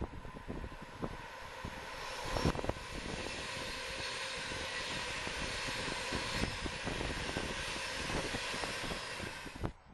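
Class 390 Pendolino electric train passing at speed: a steady rush of wheels and air that builds over the first few seconds, with many short clicks throughout, then cuts off suddenly near the end.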